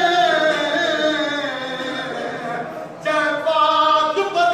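Men's voices singing a noha, a Shia mourning lament, together without instruments. The line breaks off briefly about three seconds in and starts again louder.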